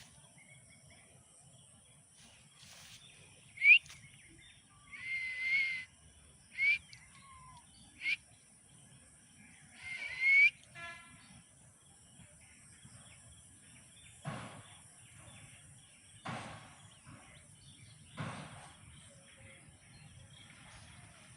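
Indian ringneck parakeet giving five short, shrill calls that bend up and down in pitch, the loudest about four and ten seconds in. Three harsher, noisier short sounds follow about two seconds apart over a faint steady high hiss.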